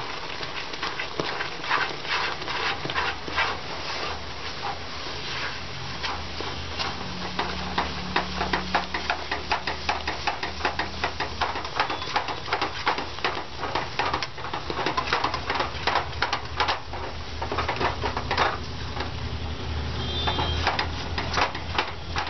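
A spatula scraping and knocking rapidly and irregularly against a nonstick kadhai as besan halwa is stirred, the milk cooking down into a thick paste.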